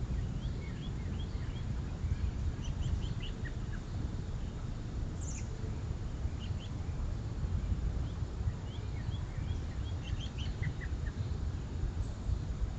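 Small birds chirping: many short, high chirps scattered throughout, over a steady low rumble.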